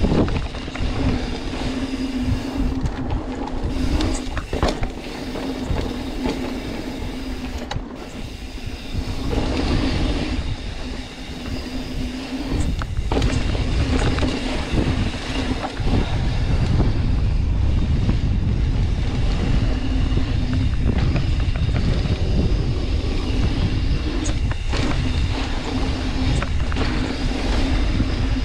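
Mountain bike riding along a rough dirt trail: wind rumble on the rider's microphone, with the bike rattling and clattering over the bumps throughout.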